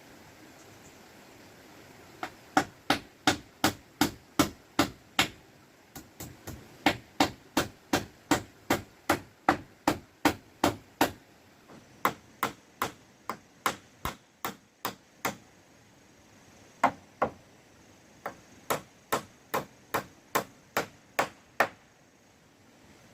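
Hammer blows in quick, even runs of about three strikes a second, with short pauses between the runs.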